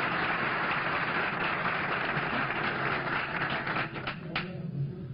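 Audience applauding steadily, dying away about four seconds in.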